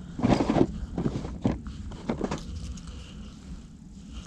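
Handling noises from fishing tackle: a few short rustles and knocks in the first two and a half seconds, then quieter, over a low steady rumble.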